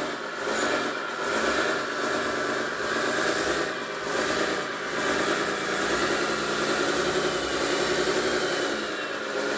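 Simulated diesel engine sound from a 1/14-scale RC hydraulic dozer's sound module, played through the speakers on both tracks. The engine note runs on steadily and swells and eases as the joystick drives the tracks and the dozer turns in place.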